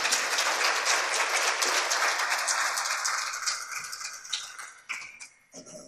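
Audience applause: dense clapping that dies away over the last two seconds or so.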